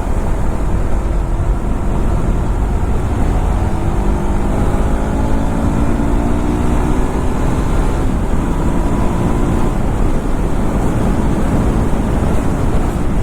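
KTM RC390's single-cylinder engine running on the move, under heavy wind rumble on the microphone. From about four seconds in, the engine's pitch climbs steadily for several seconds as the bike gathers speed.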